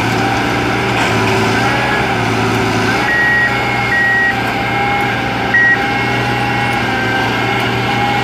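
Engine of a rail-bound maintenance-of-way track machine running steadily as the machine travels along the track. Its warning alarm gives three short high-pitched beeps between about three and six seconds in.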